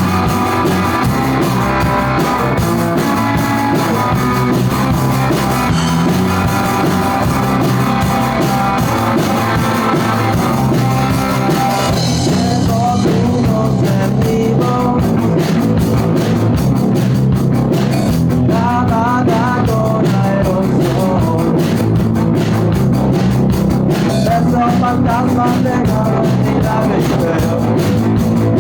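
Loud rock music with guitar and drum kit; about twelve seconds in the high end drops back and a wavering melodic line comes in, singing or lead guitar.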